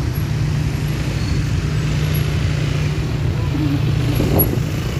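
Road traffic heard from a moving motor scooter: a steady, loud low rumble of engines and road noise, with a short wavering sound about four seconds in.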